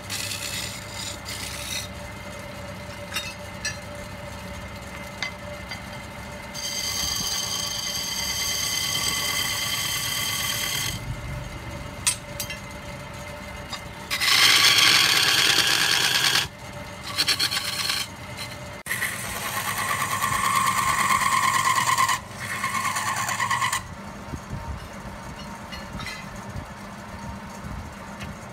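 Wood lathe running with a hand-held turning tool cutting the spinning wooden vase in several scraping passes, some with a high squeal, the loudest about halfway through; the lathe's motor hums steadily underneath.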